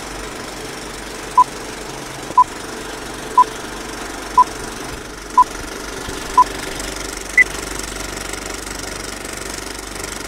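Six short electronic beeps at one pitch, a second apart, then a single higher beep, like a countdown signal, over a steady droning hum.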